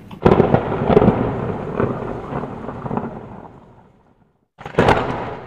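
Logo sound effect of thunder-like crashes: a sudden crash about a quarter second in rumbles away over some three seconds, then a second crash comes near the end.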